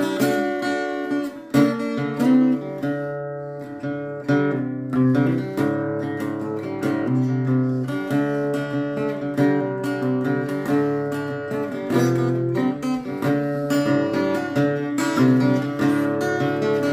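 Acoustic guitar being strummed and picked, ringing chords with a steady run of strokes.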